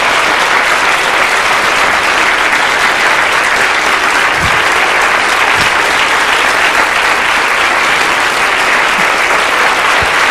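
A large audience applauding with steady, sustained clapping.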